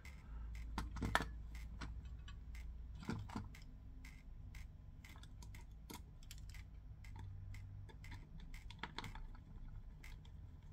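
Scattered light clicks and taps from a small plastic body-pack radio transmitter being handled and fitted together, over a low steady hum.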